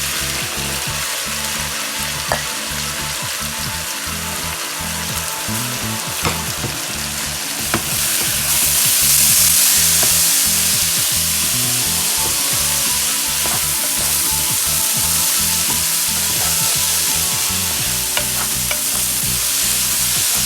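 Food sizzling in hot oil in a cooking pot while it is stirred, with a few sharp utensil clicks against the pot. The sizzle grows louder about eight seconds in and stays loud.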